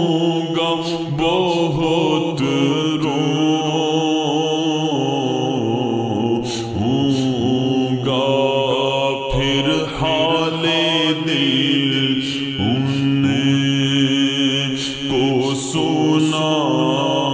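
Naat recitation: a solo voice singing long, sliding devotional lines over a steady background drone.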